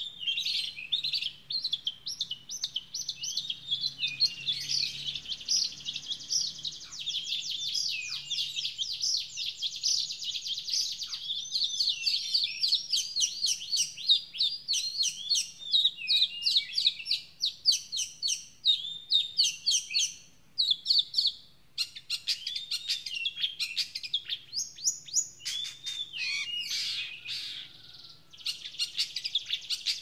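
Long-tailed shrike singing a long, varied song of rapid chattering notes and quick trills, with short pauses about two-thirds of the way through and near the end.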